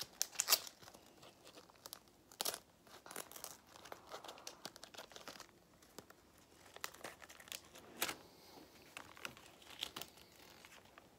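Plastic wrapper of a sticker-and-card pack crinkling and crackling in irregular bursts as it is handled and the stickers are pulled out. The loudest crackles come about half a second in, around two and a half seconds in, and again near eight seconds.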